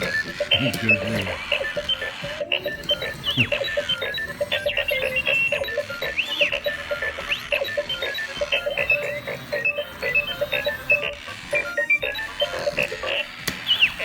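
App-controlled R2-D2 toy droid playing its dance routine: a steady pulsing electronic tune from its speaker, with R2-D2 beeps and whistling chirps that rise and fall throughout.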